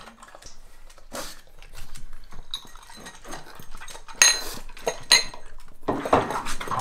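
A pug eating dry kibble from a ceramic bowl: crunching and small clicks, with two bright ringing clinks against the bowl about four and five seconds in.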